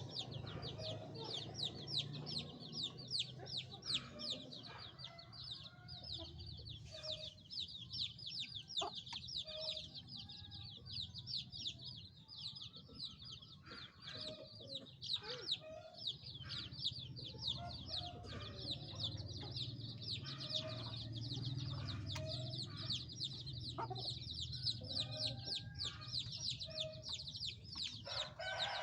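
Domestic chicks peeping without pause, calling for the hen: a dense stream of short, high, downward-sliding peeps, several a second. A hen's low clucks come in now and then beneath them.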